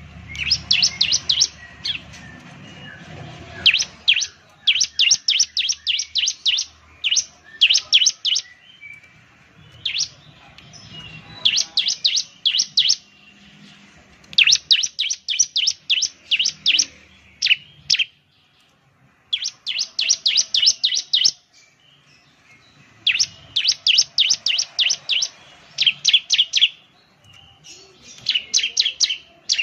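Ciblek (bar-winged prinia) singing: rapid, high repeated chirps in bursts of one to three seconds, with short pauses between.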